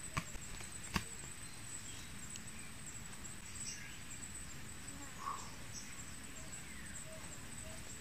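Insects making a steady high-pitched drone in forest undergrowth, with a single sharp click about a second in.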